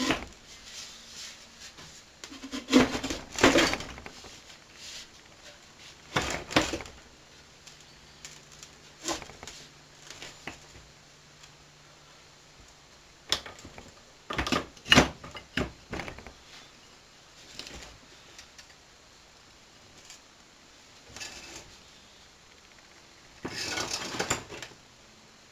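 Intermittent clinks, knocks and clatter of metal snow blower parts and tools being handled during reassembly, in irregular bursts with quiet gaps between them.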